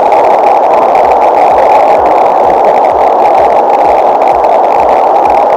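Loud, steady rush of whitewater from the Merced River's falls and cascades running in a record snowmelt flood.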